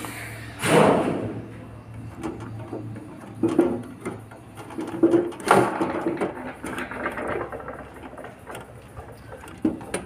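Knocks and rustling as power-supply cables and their plastic connector are handled inside a metal desktop computer case, the loudest knock about a second in, with a few lighter ones after.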